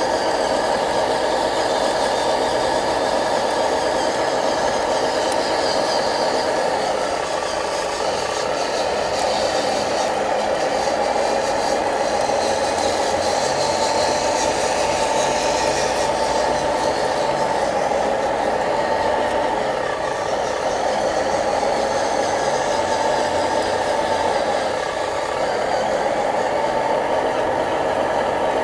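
Radio-controlled construction truck running steadily: a small motor and its gearing whirring, with some rattle.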